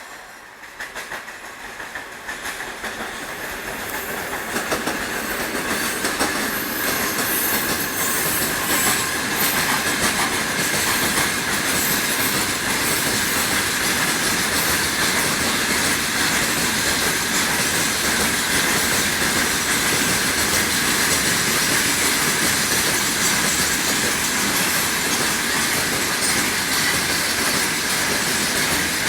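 Freight train hauled by a 2TE116K twin-section diesel locomotive running through: the sound builds over the first several seconds as it approaches, then the wagons' wheels keep up a steady clatter over the rail joints, with a steady high ringing tone over it.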